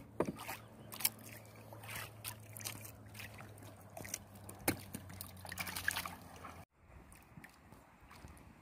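Water lapping and trickling against the hull of a small wooden outrigger canoe, with scattered light knocks and clicks over a low steady hum. About two-thirds of the way through the sound cuts off abruptly and comes back quieter.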